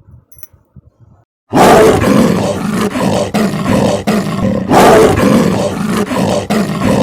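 A big cat roaring loudly and harshly, starting about one and a half seconds in, with a second strong surge near five seconds.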